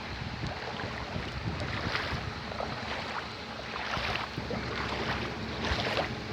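Floodwater rushing and swirling, with a few louder splashy surges, and wind buffeting the microphone.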